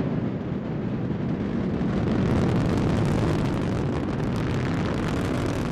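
Delta IV Heavy rocket's three RS-68A engines rumbling in ascent: a steady, deep rumble, with crackling in the upper range that comes in about two seconds in as it grows slightly louder.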